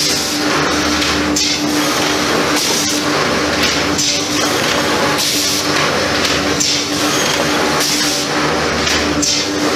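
ZDJ-1000 automatic board-slotting machine running and cutting grooves in stacked board, with a steady hum and a hiss that swells about every second and a half as it works through its cycle.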